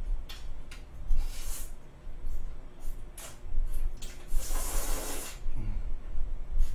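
A person slurping spaghetti from a fork: a short slurp about a second in and a long, loud slurp about four and a half seconds in, with a few short clicks between.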